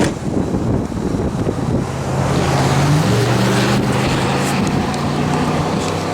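Gusty wind buffeting the microphone, with a vehicle engine humming underneath from about two seconds in, its pitch stepping up a little about a second later.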